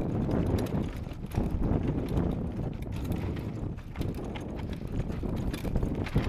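Trek X-Caliber 6 hardtail mountain bike clattering down a rough, rocky dirt trail: irregular knocks and rattles from the bike over a steady low rumble of tyres on dirt and gravel.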